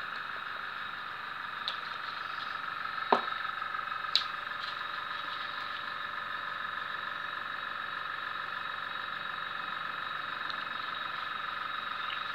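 A few short, light knocks and clicks of plastic mixing cups and dye bottles being handled on a table, the loudest about three seconds in, over a steady background hum.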